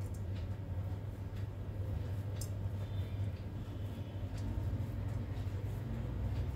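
A steady low hum, with faint irregular taps and scrapes of hands pressing crumbly semolina laddu mixture into balls against a steel kadai.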